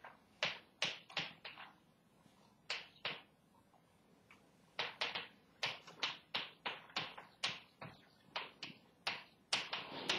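Chalk writing on a blackboard: quick, sharp taps and short scratches, one per stroke of the letters, coming in little runs with short pauses between words.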